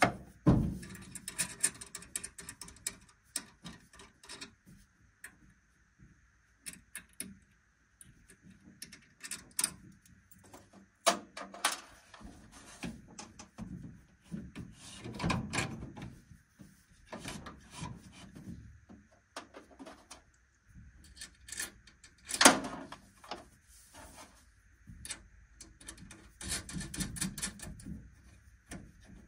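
Handling noise from hands working on battery cables and terminals close by: irregular clicks and knocks with stretches of rubbing, one sharp knock a little past the middle standing out above the rest.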